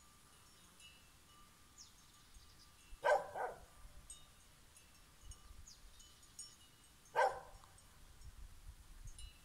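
A dog barking twice, about four seconds apart, the first a quick double bark, with faint high clinks between.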